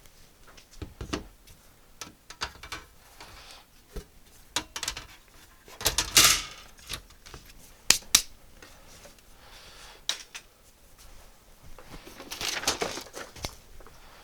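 Small objects being handled on a workbench: scattered clicks, taps and knocks, with a longer scraping rustle about six seconds in and another near the end.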